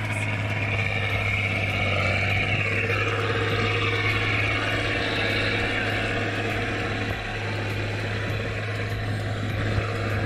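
Farm tractor engine running steadily at an unchanging pitch, a constant low drone, while its cage wheels churn through a flooded rice paddy.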